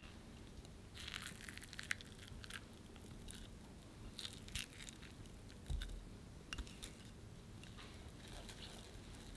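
Soft scattered clicks and scrapes as a lump of bloomed gelatine is scraped from a small glass bowl into a stainless steel saucepan of hot cocoa glaze mixture and stirred in with a silicone utensil, with a couple of dull knocks past the middle.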